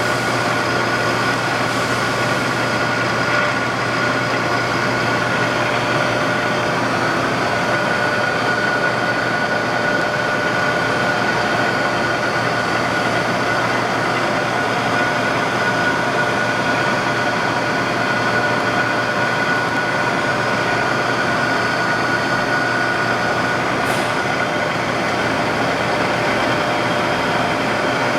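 Lagun FU3-LA horizontal milling machine running under power, its 10 HP drive giving a steady mechanical hum with a constant high whine. A brief tick sounds near the end.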